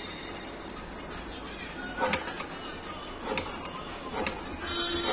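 Manual passport-photo cutting machine, its hand-lever steel blade snipping through photo paper in three short sharp cuts, at about two, three and a half and four seconds in. A steady machine hum begins near the end.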